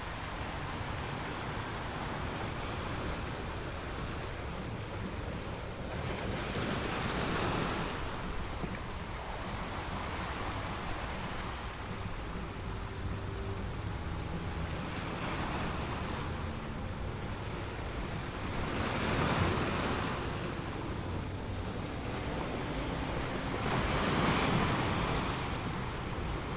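Ocean surf breaking on a sandy beach, a steady wash that swells up with each larger wave, four times, with wind on the microphone.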